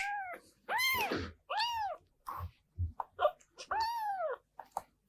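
Kitten mewing: three high, thin mews that each rise then fall in pitch, about a second in, near two seconds and around four seconds, after one trailing off at the start. A few short sharp sounds come between them.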